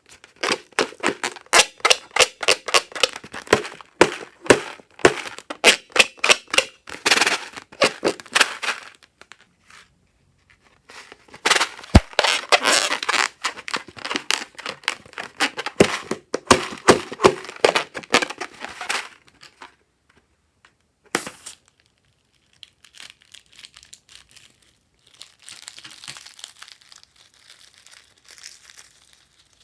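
Slime being squeezed and worked by hand, giving rapid crackling, popping air bubbles in two long runs, a single sharp snap a little past the middle, then fainter crackling near the end.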